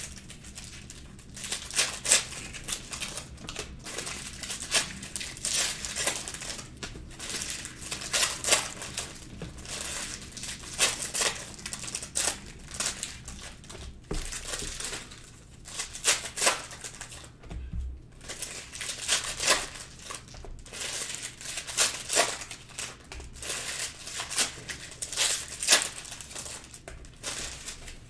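Foil trading-card pack wrappers crinkling and tearing as packs are ripped open, in irregular bursts of sharp crackling, with cards being handled between them.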